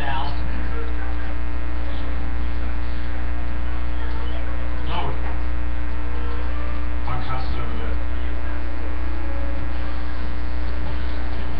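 Loud, steady electrical mains hum with a dense stack of harmonics, with a few faint, brief sounds over it near the start, about five seconds in and about seven seconds in.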